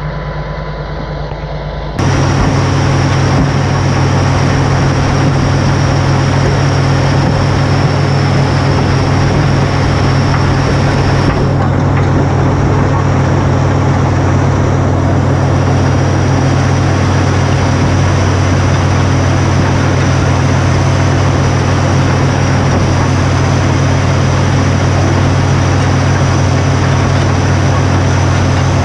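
Caterpillar D6C crawler dozer's diesel engine running steadily under load while its blade pushes hay and manure, heard close to the machine. For the first two seconds it is quieter and more distant, then it jumps louder and close up.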